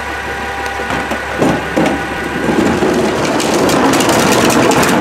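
Idling CNG recycling truck, then two knocks and a long, loud clattering rattle as a cart is tipped by the gripper arms into the hopper.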